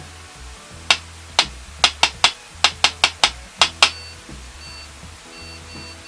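Eleven sharp knocks tapped out in an uneven rhythm, slow then in quick runs, keying a new secret code into an Arduino knock-code lock's noise sensor while it is in code-recording mode.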